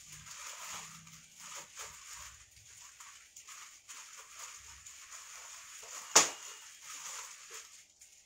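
Irregular crinkling and rustling of plastic packaging as garments are unpacked from their plastic packets, with one sharp snap about six seconds in.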